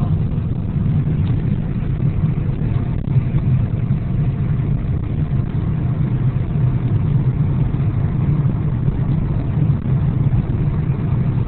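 Steady low rumble of a car's road and engine noise heard inside the cabin while driving at an even speed.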